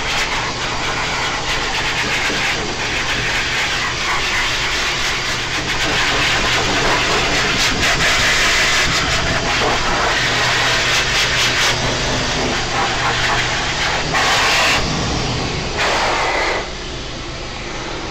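High-velocity pet dryer blowing air through its hose onto a dog's coat: a loud, steady rush of air over a constant motor hum. The sound drops noticeably near the end.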